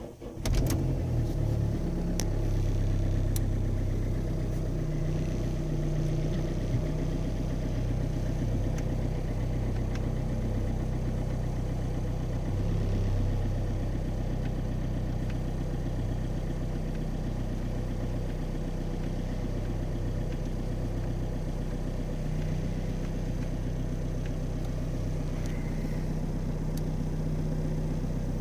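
Renault Laguna II's 1.9 dCi four-cylinder turbodiesel on a cold start in sub-zero frost, catching about half a second in and then idling steadily, heard from inside the cabin. The idle is a little higher for the first few seconds before it settles.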